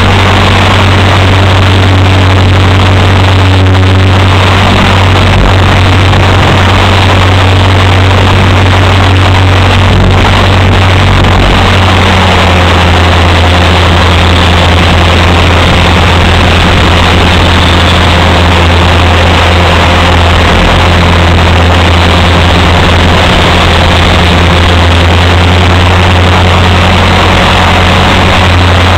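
Align T-Rex 450 electric RC helicopter in flight, heard from a camera mounted on the helicopter itself: a loud, steady drone of the spinning rotor and drivetrain, with a low, even hum underneath.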